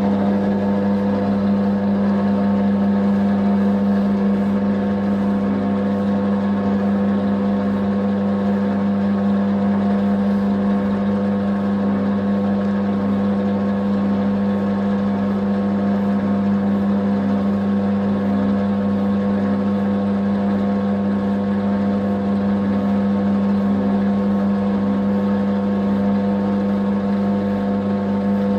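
Commercial bakery dough mixer running with a loud, steady hum as its hook kneads a large batch of dough.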